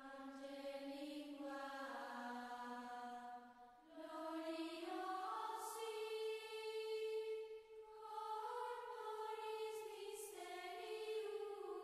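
Slow sung chant: voices holding long notes in phrases of about four seconds, with short pauses between phrases and a few soft sibilant consonants.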